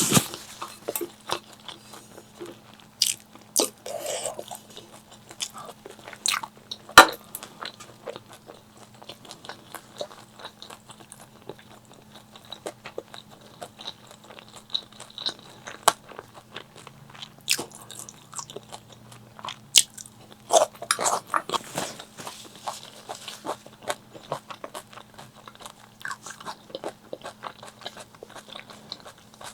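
Close-miked eating: repeated crisp crunching bites and chewing, in irregular clusters, the loudest crunch about seven seconds in. A faint steady hum sits underneath.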